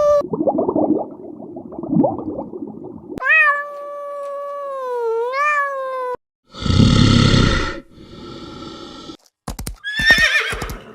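Several different animal calls one after another: rough low sounds, then a long wavering pitched call about three seconds in, a loud harsh call past the middle, and sharp clicks with a short pitched call near the end.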